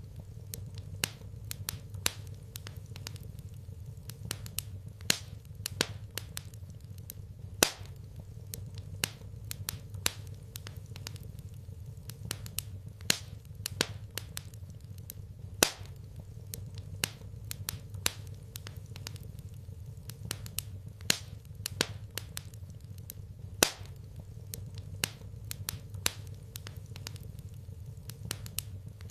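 Wood fire crackling in a fireplace: irregular sharp pops and snaps, a few much louder than the rest, over a steady low rumble.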